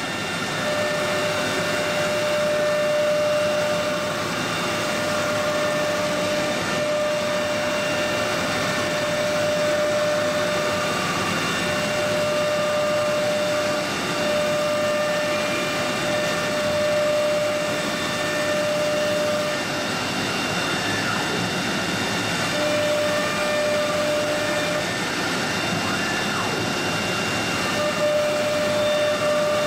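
Three-spindle CNC wood router running: a steady machine noise with a spindle tone that drops out and returns several times.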